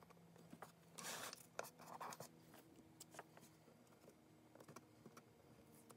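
Faint scratching and rubbing of fingers and a hobby knife working a vinyl stencil and masking tape on a painted metal box lid: a short scratchy rub about a second in, followed by a few small clicks and scrapes.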